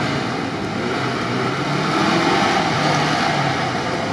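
Off-road vehicle engines running, a steady drone that grows louder about halfway through.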